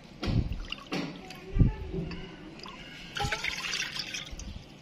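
Water poured from a glass jug into a small glass bowl, then tipped from the bowl into a non-stick wok, with trickling and splashing. A few dull knocks come from handling the glassware.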